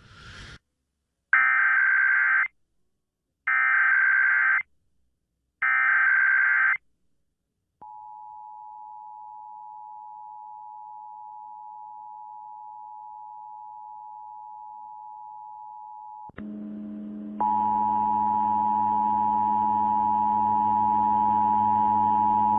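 Emergency Alert System test signal: three short, buzzy digital header bursts about a second apart, then a steady two-note attention tone. About sixteen seconds in, a louder steady alert tone with a low hum beneath it takes over and runs until the announcement.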